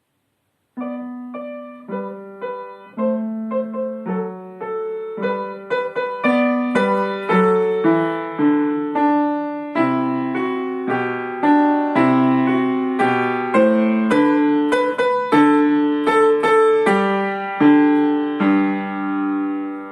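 Piano piece beginning about a second in, starting soft, swelling in an early crescendo to a moderately loud level, then swelling again near the end to finish loud.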